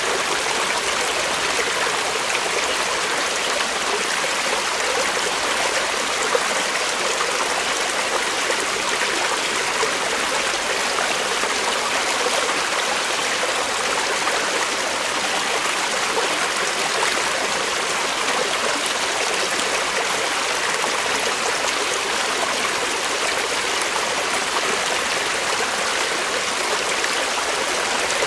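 Creek water flowing and burbling over rocks, a steady, even rush with small gurgles.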